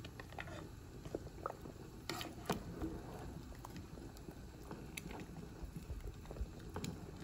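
Pot of water at a boil with jumbo pasta shells, bubbling steadily. Light clicks and knocks come now and then as a utensil stirs the shells against the stock pot.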